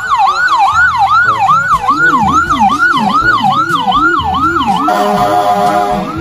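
Electronic ambulance siren wailing in a fast rise-and-fall, about three sweeps a second. A second, lower-pitched siren sweep joins about two seconds in. A set of steady tones comes in near the end.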